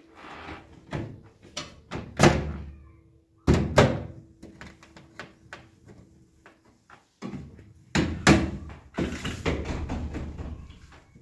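Knocks, thuds and clatter of a refrigerator's plastic door shelves and bins being handled and pulled out, with the loudest thuds about two, three and a half, and eight seconds in.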